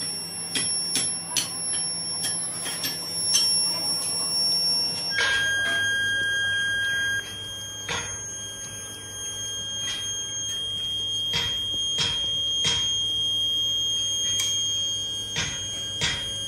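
Workshop machinery giving a steady high-pitched whine over a low hum, with irregular sharp metal knocks and clinks. The machine tones change abruptly about five seconds in.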